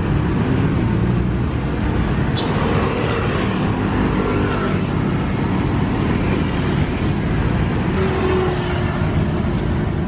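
Steady street traffic, with motorbikes and cars passing close by.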